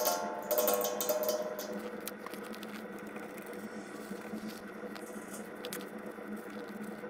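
Background music fades out in the first second or two, leaving a steady low hum and scattered faint clicks and rustles as gloved hands work on the copper fuel line fitting.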